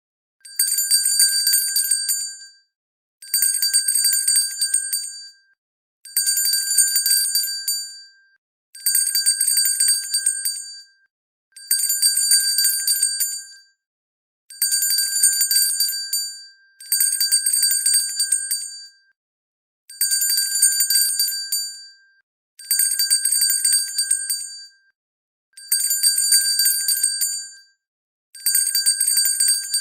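A hand bell shaken in repeated bursts of rapid clapper strikes, each burst about two seconds long. The bursts repeat roughly every three seconds with a short silence between them, about eleven times. Each burst is a bright, high ringing that dies away at its end.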